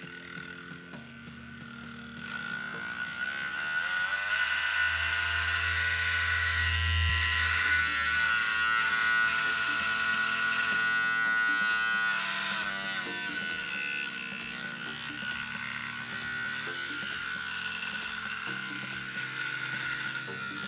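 A 775 DC motor spinning the jet pump's nylon propeller in open air, a steady electric whine that starts about two seconds in and grows louder. Its pitch climbs and falls in the middle as the speed changes, and it eases off a little after that. Background music plays underneath.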